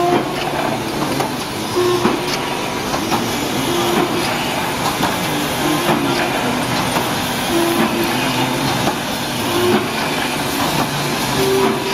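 Welded wire mesh machine running: a steady mechanical clatter with many short clicks and brief humming tones that come and go.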